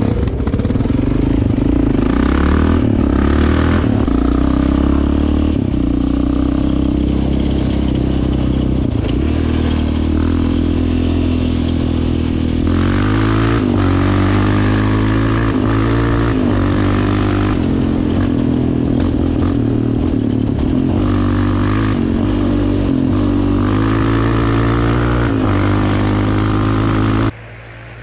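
Quad (ATV) engine running under throttle as it rides along, its pitch rising and falling with the throttle and climbing in steps through the gears. It cuts off abruptly near the end to a quieter engine sound.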